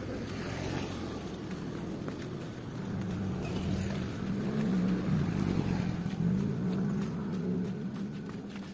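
Motor scooter engine running as it comes along the street, growing louder about three seconds in and fading near the end.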